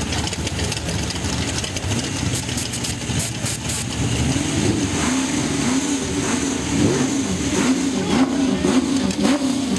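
Car engine running close by with its pitch rising and falling unevenly. The engine grows more prominent about four seconds in.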